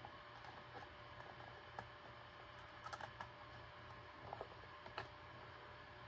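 Faint, scattered clicks and ticks of a screw being driven by hand with a small screwdriver into a 3D-printed plastic case, the screw threading its own way into the plastic. A small cluster of clicks comes about three seconds in.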